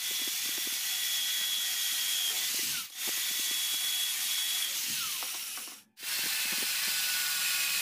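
Power tool running with a high whine over a steady hiss, breaking off briefly about three seconds in and again near six seconds before carrying on.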